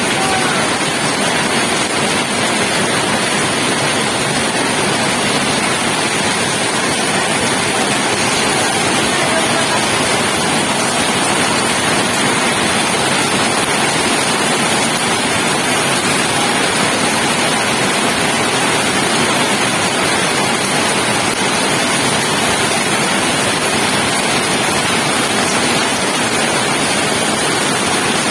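Steady rain falling, a loud, even hiss that does not change.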